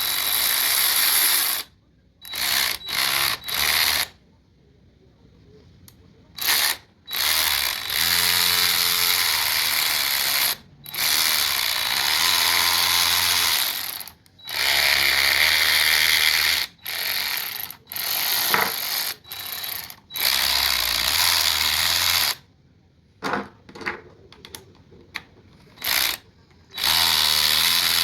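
Byczone 3/8-inch cordless electric ratchet wrench on a DeWalt 20V battery, its motor running in repeated trigger bursts of one to a few seconds with a steady high whine. Quick short blips come between some bursts, and it stops dead between runs.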